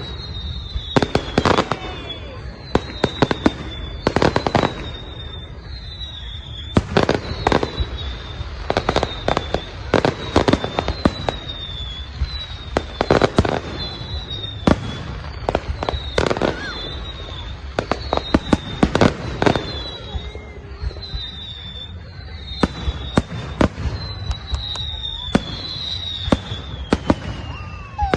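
Fireworks display going off: repeated sharp bangs, often several in quick succession, with many short high whistles that fall in pitch between them.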